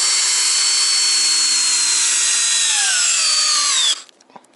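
Cordless drill-driver driving a long wood screw through a wooden step board into a tree trunk. The motor whines steadily, then its pitch drops as the screw seats and the motor slows under the load, and it stops about four seconds in.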